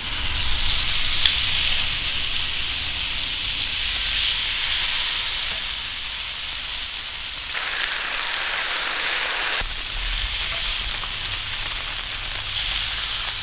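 Oiled salmon fillets sizzling on the hot steel plate of a Blackstone flat-top griddle as they are laid down with tongs: a steady frying hiss that starts suddenly as the first fillet hits the steel.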